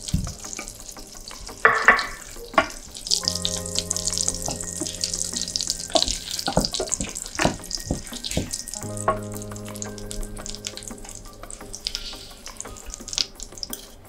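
Butter foaming and sizzling in a stainless saucepan as salted egg yolks are stirred and mashed into it with a wooden spoon, with crackling and scattered knocks and scrapes of the spoon against the pan.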